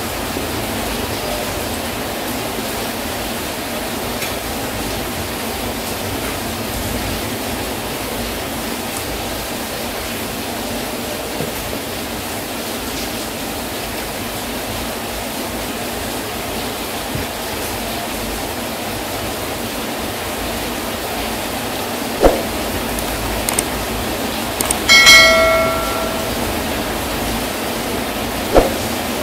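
Steady hiss of heavy rain. Near the end, a few sharp clicks and a short bell-like chime with several ringing pitches: a subscribe-button animation sound effect.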